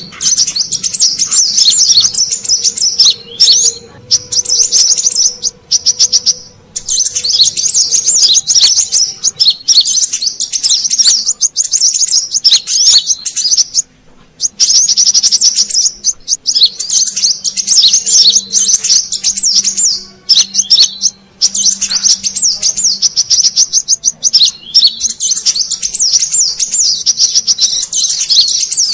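Brown-throated sunbird (kolibri kelapa) calling: fast, high twittering chirps in runs of a few seconds with short breaks, used as a lure call to draw wild sunbirds.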